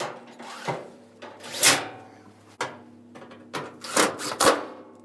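A series of rubbing, scraping strokes from handling the dryer's cabinet and parts, about six in all and loudest near two seconds in, with a short sharp click about halfway through.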